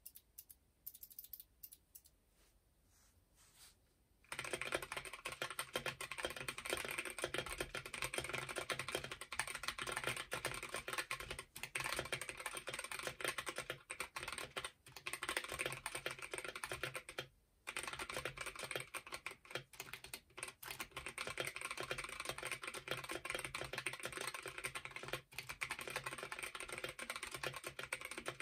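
Typing on a Zeeyoo 65 mechanical keyboard with Gazzew Boba U4T tactile switches (62 g springs) and stock stabilisers, on a deskmat. A few separate keystrokes come first, then fast continuous typing from about four seconds in, with a brief pause partway through.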